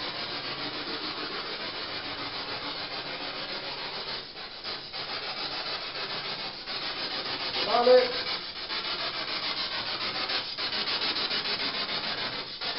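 Steady, loud static hiss with a fast, even pulsing flutter and a few brief dropouts. A man's voice briefly says "Parlez!" about eight seconds in.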